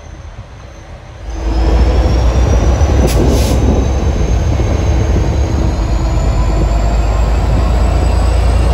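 V/Line N class diesel-electric locomotive passing close by, its EMD two-stroke V12 diesel engine rumbling loudly; the sound jumps up sharply about a second in. A faint thin whine rises slowly in pitch, with a short hiss about three seconds in.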